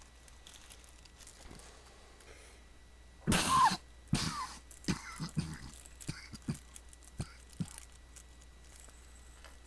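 A person coughs twice, loud and short, about three seconds in, followed by a run of light clicks and taps.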